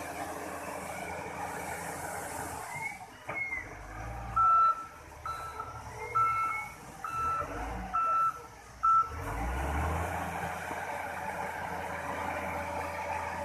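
Wheel loader's reversing alarm beeping, about six beeps a little under a second apart, over the steady running of the loader's engine.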